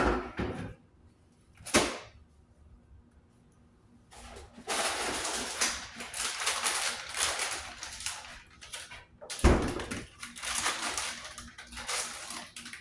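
Plastic packaging crinkling and rustling in long stretches, with a single loud thump about two-thirds of the way through. Near the end it is a bag of shredded cheese being torn open.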